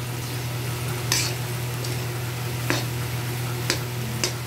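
Mashed boiled potatoes sizzling in hot oil in a kadhai (Indian wok) while a spatula stirs them, with a steady hiss. The spatula knocks and scrapes sharply against the pan a few times.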